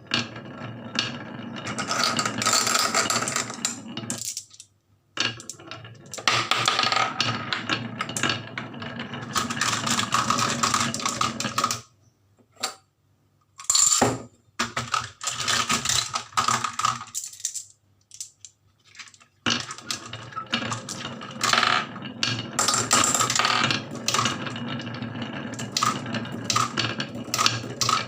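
Marbles rolling and clattering down a wooden HABA marble run, a rapid rattle of clicks in several runs of a few seconds each, broken by short pauses.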